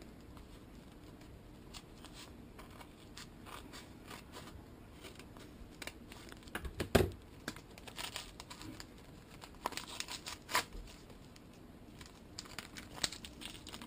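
Paper wrapping being torn open and crumpled by hand, in scattered rustles and short rips, the loudest about seven seconds in.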